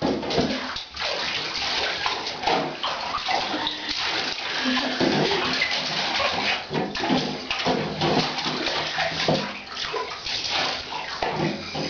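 Water splashing and sloshing in a bathtub as a dog is washed, in irregular splashes.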